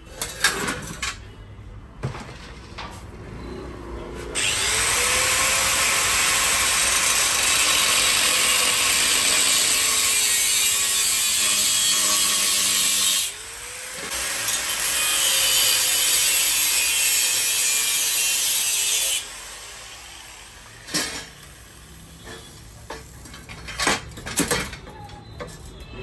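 Angle grinder cutting into the steel stock exhaust of a Suzuki Hayabusa Gen 3 to remove the catalytic converter (de-cat). It makes two long cuts, about nine and five seconds, with the motor's whine rising as it spins up at the start of each. Sharp metal knocks and clanks come before and after the cuts.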